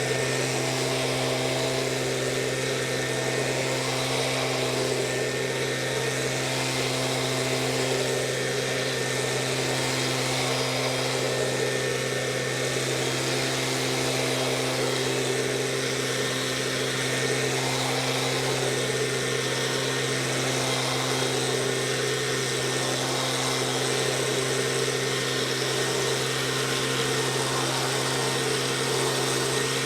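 Stihl SH 86 blower/vacuum-shredder's 27.2 cc two-stroke engine running at a steady speed, with the rush of air through the fan.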